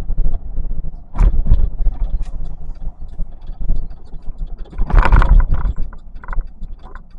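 Vehicle driving, heard from inside the cab: steady low road and engine rumble, with two louder rushes of noise about a second in and around five seconds in.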